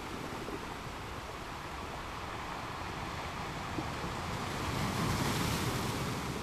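Ocean waves washing onto the shore in a steady rush, with one wave swelling louder about five seconds in before easing off.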